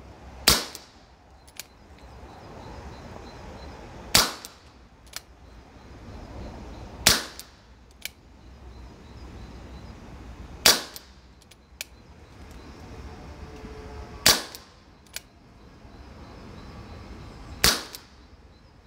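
Webley Mk6 CO2 air pistol firing six .177 pellet shots, one every three to four seconds, each a sharp crack. A lighter click follows about a second after most shots.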